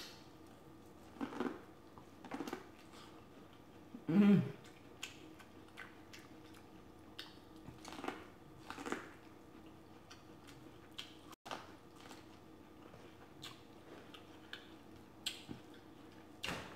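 A person biting and chewing corn on the cob: a string of short, uneven bites and chews with pauses between them.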